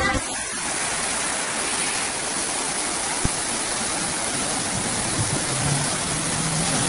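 Steady rush of a swollen, muddy river in flood.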